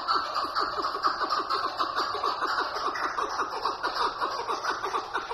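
Chukar partridge calling: a steady rapid run of short chuck notes, about six or seven a second.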